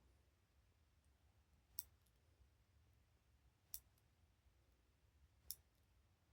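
Three faint, sharp clicks about two seconds apart: the number wheels of a four-digit combination padlock being turned one digit at a time while the shackle is held under pull, to decode the combination by feel.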